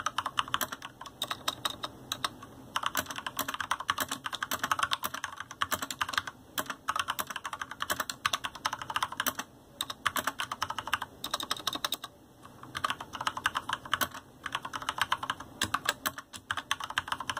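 Continuous fast typing on a GANSS GS87-D mechanical keyboard with Cherry MX Red linear switches: a dense run of key clacks as the keys bottom out, with a few brief pauses between bursts.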